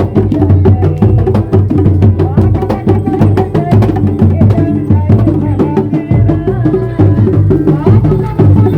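Live kuda lumping accompaniment music: drums and other percussion beating a fast, steady rhythm under a sustained melodic line.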